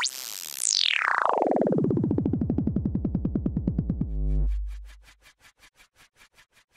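Synthesized electronic intro sting: a rapidly pulsing tone sweeps down in pitch from very high to very low over about four seconds and lands in a deep boom, followed by faint ticking pulses that fade out.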